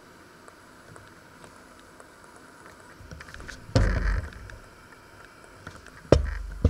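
Faint steady hiss broken by two sudden deep thumps, about four and six seconds in, each dying away within about half a second.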